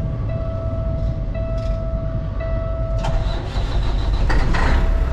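Dash warning buzzer beeping steadily with the key on. About three seconds in, the starter cranks the semi truck's Caterpillar diesel and the buzzer stops. The engine fires and settles into a deep idle near the end, a cold start before warm-up.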